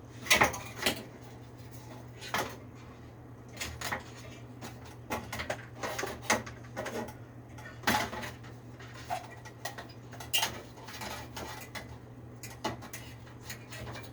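Irregular metallic clinks and knocks, a dozen or so spread out, of hand tools and metal parts being handled on a window air-conditioner unit, over a steady low hum.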